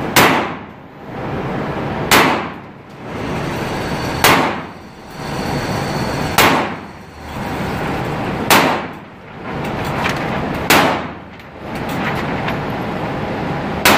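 Motorized target carrier running as it brings a paper target back up the range lane, with a regular metallic clank about every two seconds over its steady running noise.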